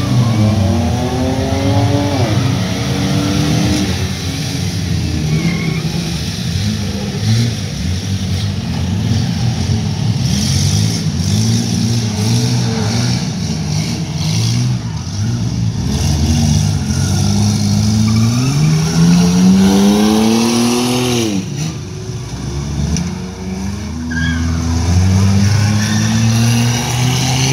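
Engines of several battered compact cars racing around a track, revving up and easing off in turn. About two-thirds of the way through, one engine climbs steeply in pitch and then drops off suddenly.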